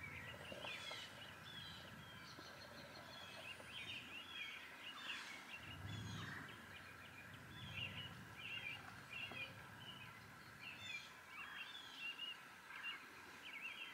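Many small birds chirping and calling continuously, short overlapping calls several a second, faint, over a steady faint high hum.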